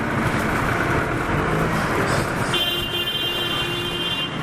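City street traffic running, with a vehicle horn held in one steady note for about two seconds, starting a little past halfway.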